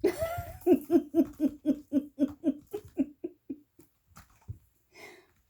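A woman laughing: a run of about a dozen short "ha" pulses, about four a second, that slow and fade away over some three seconds.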